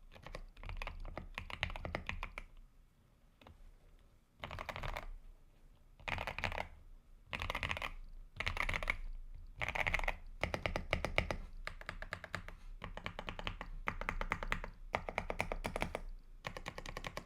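Typing on a Zuoyu GMK81 mechanical keyboard fitted with Gateron Oil King linear switches: fast runs of keystrokes in bursts, with a near-pause about three seconds in.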